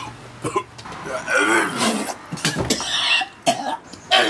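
A man coughing and gagging in rough, strained bursts, retching from the gag reflex after eating something he can barely keep down. The bursts grow loud about a second in.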